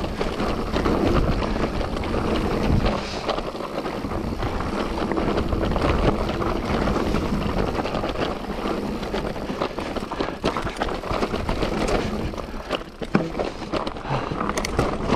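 Mountain bike riding over a wet trail: a steady rush of tyre and air noise, with many quick rattles and knocks from the bike over rough ground.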